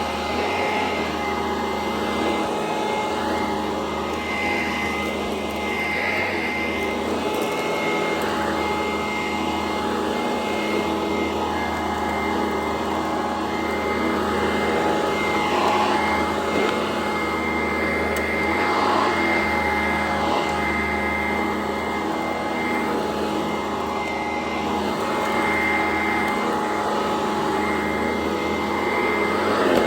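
Sanitaire SC899 upright vacuum cleaner running steadily while vacuuming, a constant motor whine over rushing air.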